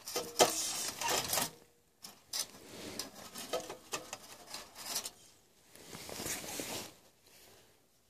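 Irregular bursts of rustling, crinkling and light clattering, with a sharp knock about half a second in: hands handling a small cooking pot on a wax-burning camp stove and its crumpled aluminium-foil windscreen.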